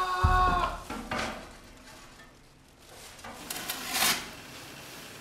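Black plastic garbage bag rustling as it is handled, with a low thump near the start and a brief, louder swish about four seconds in.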